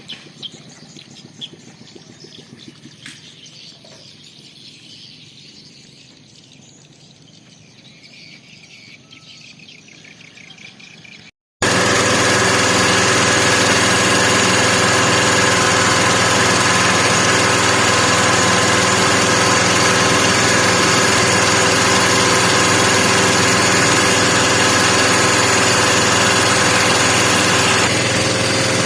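Faint riverside ambience with birds chirping and a few small clicks, then after an abrupt cut partway through, a small boat engine running loud and steady at one constant speed.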